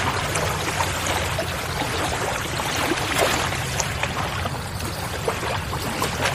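Steady rushing, water-like noise with scattered small clicks throughout and a low hum underneath.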